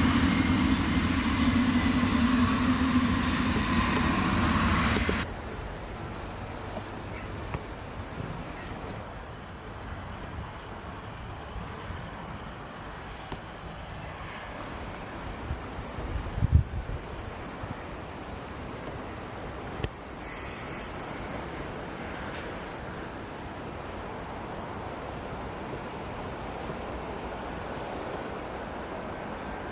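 Aircraft engine noise for about five seconds, then cut off abruptly. Insects chirp after that in fast, regular high-pitched pulses, with a short low thump a little past halfway.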